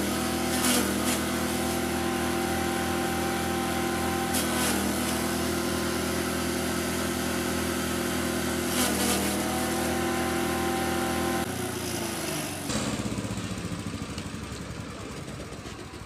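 Forage chopper driven by a 6.5 HP engine, running steadily and chopping corn stalks; the engine bogs briefly with a burst of chopping noise about four times as stalks are fed in. Near the end the engine note falls and gives way to a quieter, fading noise.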